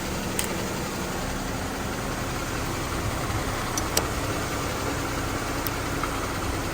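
A car engine idling steadily, just started after sitting unused for a couple of weeks. A few light clicks sound over it, one near the start, one about four seconds in and one near the end.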